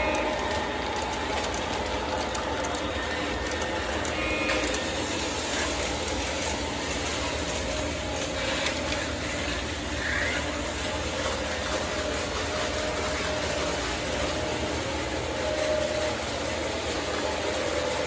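O gauge three-rail model trains running on the layout, giving a steady mechanical whir of the motors and a clatter of wheels on the rails.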